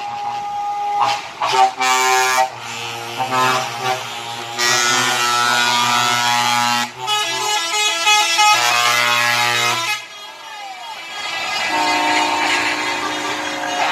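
Air horns of trucks in a passing convoy blowing: a few short toots, then long held blasts of several notes at once, the chord changing as different trucks sound their horns, with a brief break about ten seconds in.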